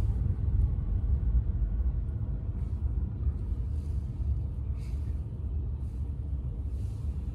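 Steady low rumble of road and tyre noise from a small electric car driving along a city street, heard from inside the cabin.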